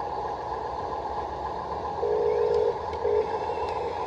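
Small electric gear motors of a stock Top Race TR213 (Huina) RC wheel loader running with a steady whine. A louder, steadier motor tone cuts in about two seconds in for under a second, then briefly again, as another function is worked.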